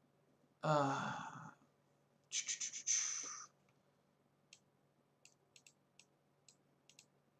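A man sighs aloud, a falling voiced sound about a second in, followed by a short breathy exhale. Then a few faint computer mouse clicks as he scrolls.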